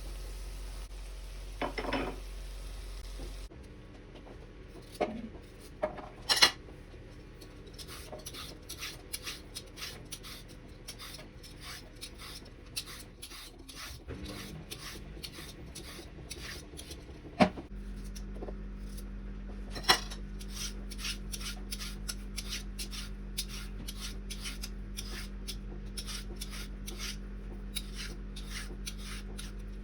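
Kitchen food-prep sounds: quick repeated scraping or cutting strokes, several a second, with a few sharp knocks of utensils.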